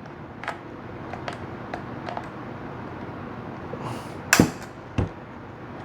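Light, scattered clicks and ticks of the Uconnect screen frame's metal tabs being bent and pried up, with two sharper snaps about four seconds in and a second later.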